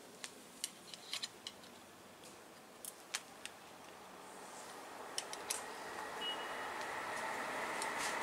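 Small sharp clicks and taps from hands working on a road bike's handlebar, stem and brake-lever fittings, a dozen or so in the first five seconds. After that, a rustling noise grows steadily louder toward the end.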